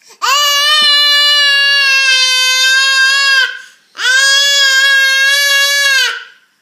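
A baby letting out two long, loud, high-pitched squeals held at an even pitch, the second after a short breath about four seconds in: the baby is testing his vocal cords.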